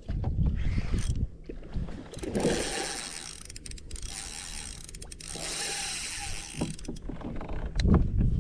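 Fishing reel ratcheting and whirring as a hooked redfish pulls against the line, with wind rumbling on the microphone.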